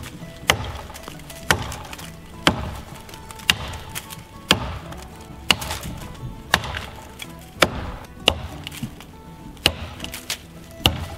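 Hand-forged Trekker axe chopping into the trunk of a small poplar, cutting a felling notch: a steady series of sharp chops, about one a second, around eleven strikes.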